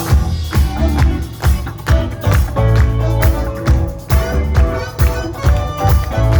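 Live band playing without vocals: drums keep a steady beat of about two hits a second over a heavy bass line, with sustained pitched notes above.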